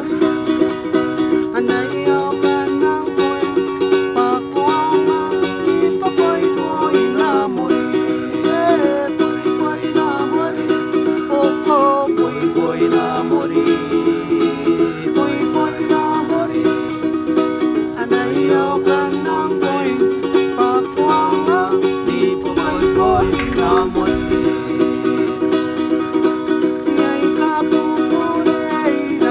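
Music: a ukulele strummed in a steady rhythm, with a moving melody line above a steady low accompaniment.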